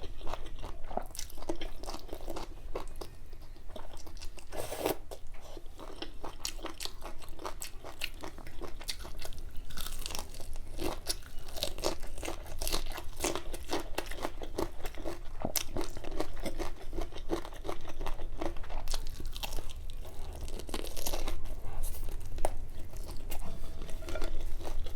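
Close-miked eating: a person chewing and biting food, with many short irregular crunches and wet mouth clicks.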